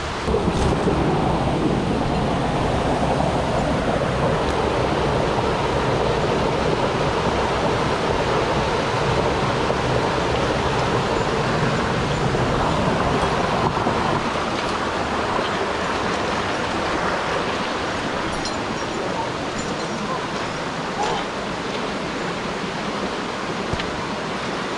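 Steady rush of water in a mountain stream gorge, louder for the first half and easing a little later, with a few faint clicks near the end.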